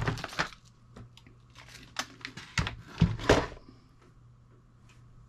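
Handling noises from working on a desktop computer case: a run of knocks, clicks and crinkly rustles, busiest at the very start and again from about two to three and a half seconds in.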